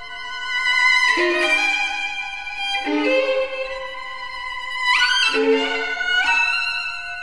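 Background music: a slow melody of long held notes that slide upward into new pitches a few times.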